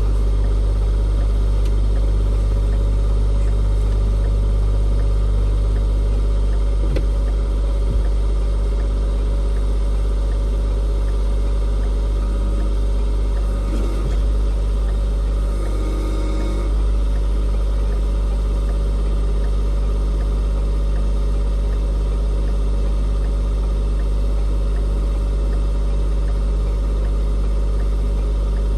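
A vehicle engine idling steadily, with a few faint knocks over it.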